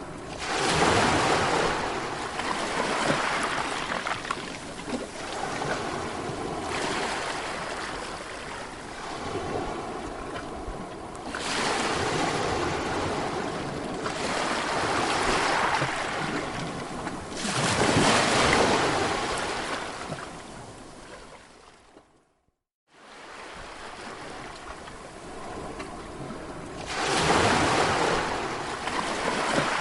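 Sea waves breaking and washing ashore in repeated surges every few seconds. About two-thirds of the way through, the sound fades and drops out to silence for under a second, then resumes.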